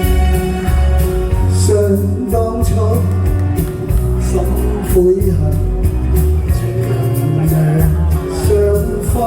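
Live band music with a singer: bass, keyboard and drums playing a steady beat under a sung melody.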